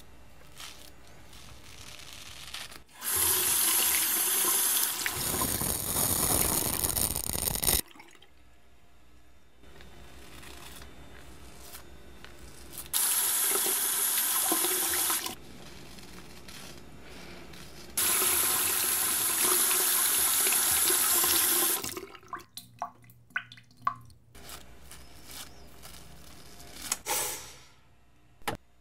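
Bathroom sink tap running in three separate bursts as a razor is rinsed under the stream. Near the end come scattered short drips and clicks.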